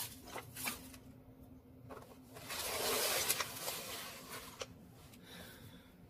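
Kitchen handling noises: a few sharp clicks and knocks, and a rushing, rubbing noise lasting about a second and a half near the middle, over a faint steady appliance hum.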